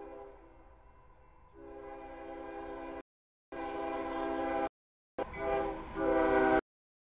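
Freight locomotive horn sounding a chord in a series of blasts for a grade crossing as the train approaches. First a long blast that softens briefly and swells again, then a shorter blast, then a louder one near the end.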